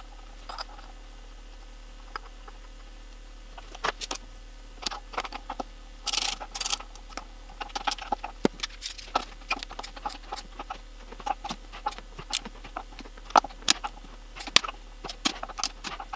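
Irregular small metal clicks and clinks of bolts and hand tools as bolts are fitted and tightened on the spline flange of a motorcycle's rear wheel hub, thicker from a few seconds in.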